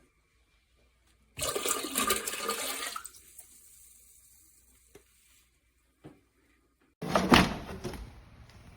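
Two bursts of rushing, splashing water, the first about a second and a half long, the second shorter and louder about seven seconds in, with a couple of small knocks between them.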